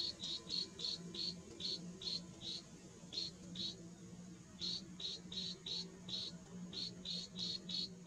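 A series of short, high-pitched chirps, about three a second, with a pause of about a second near the middle.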